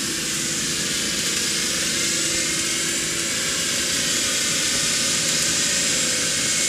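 Toyota Land Cruiser 70 working slowly through deep mud: a steady mechanical drone with a lot of hiss, gradually getting louder.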